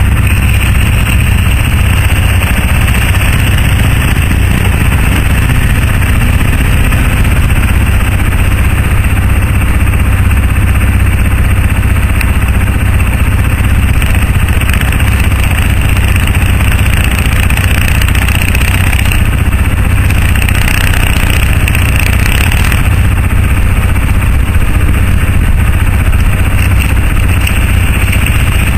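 Kawasaki and Yamaha ATV engines running steadily, a loud, even, low-pitched rumble.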